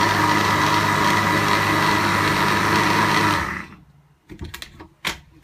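Electric countertop blender running at a steady speed, blending bananas, milk and sugar into a milkshake. It is switched off about three and a half seconds in and spins down, followed by a few light knocks and a sharp click.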